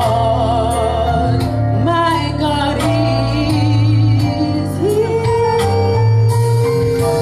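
Church praise team singing a gospel song, with long held notes that waver, over bass and drums.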